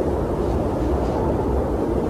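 Blizzard wind blowing steadily: a dense, low rushing noise with faint higher gusts passing through.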